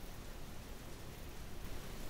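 Electric fan running steadily: a constant, even rush of moving air with a low rumble underneath.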